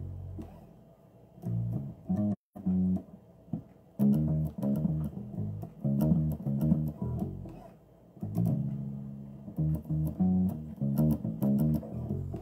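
Electric bass guitar played solo, plucked notes in quick runs and phrases with short pauses between them. The sound cuts out briefly a couple of seconds in.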